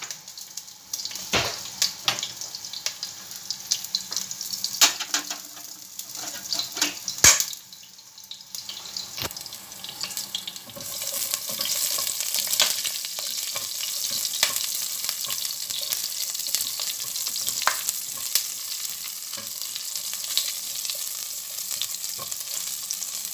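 Whole shallots, ginger, star anise and bay leaves sizzling in hot oil in a pot as they are sautéed and stirred with a silicone spatula, with scattered sharp clicks and pops. About eleven seconds in the sizzle turns louder and steadier.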